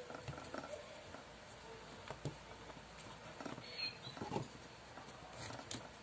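Faint scattered rustling, scraping and light clicks of tape-covered copper wire being unwound by hand from a microwave-oven transformer's secondary winding, with a couple of louder knocks in the middle.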